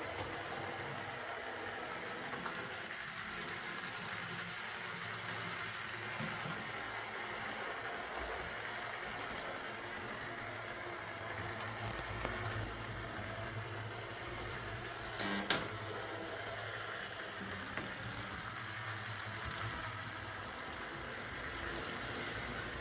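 Lima Class 08 shunter OO-gauge model locomotive running on track: a steady motor buzz and wheel noise, with one sharp click about fifteen seconds in. It runs on a replacement armature, fitted because the original was badly balanced and rattled.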